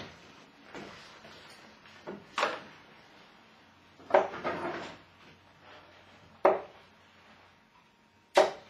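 Steel-tip darts striking a Winmau Blade 4 bristle dartboard one at a time, a sharp thud roughly every two seconds.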